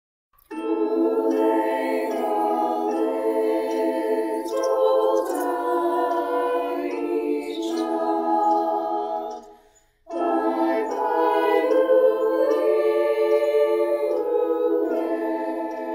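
High school choir singing a cappella in held multi-part chords. The singing starts about half a second in, pauses briefly around the middle, and comes back in.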